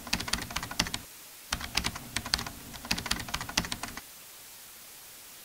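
Typing sound effect: rapid keyboard keystroke clicks in two runs with a brief pause about a second in, stopping about four seconds in and leaving only a steady faint hiss.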